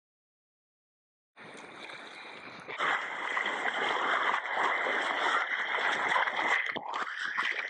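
Rushing, splashing sea water around a kayak, starting after a second or so of silence and growing louder a little later.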